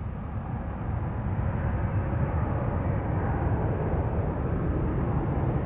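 Jet engine noise from a Gulfstream G-IV's Rolls-Royce Tay turbofans as it taxis: a steady low rumble under a hiss that grows steadily louder.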